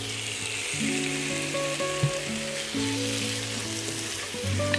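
Raw shrimp sizzling in hot oil with minced garlic and scallion in a wok as they are poured in and stirred with a wooden spatula. The sizzle jumps up as they land and eases off later. Background music with held notes plays underneath.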